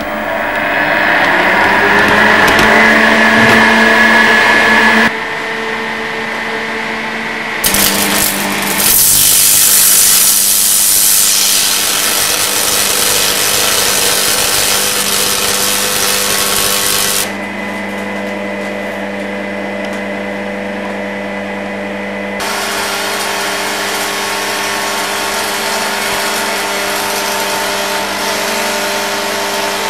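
Carbon arc lamp of about 1 kW burning: a steady hiss over an electric hum, in several stretches that change abruptly. About eight seconds in there are a few sharp cracks, followed by a louder, brighter hiss until about halfway through.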